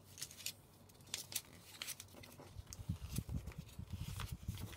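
White paper being rolled up tightly by hand: scattered crisp crinkles and rustles, joined by a duller rubbing sound from about three seconds in.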